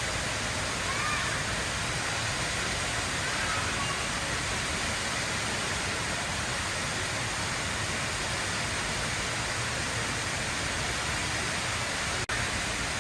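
The HSBC Rain Vortex indoor waterfall: water falling about 40 metres from the roof into the pool below, a steady rushing. The sound drops out for an instant near the end.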